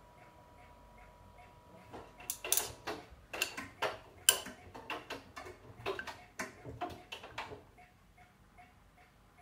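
Bosch Serie 8 front-loading washing machine mid-wash: a run of sharp, irregular clicks and knocks lasting about six seconds, over a faint, even ticking of about three a second.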